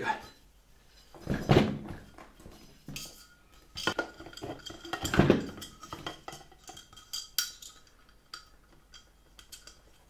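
Knocks, clicks and scrapes of the Hoover Dustette hand vacuum's motor being fitted into its cylindrical housing, with louder knocks about a second and a half in and about five seconds in.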